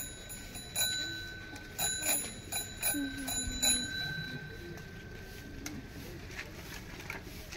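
Bicycle bell on a child's bicycle rung over and over in a quick series of dings for about three seconds, its ring then fading away.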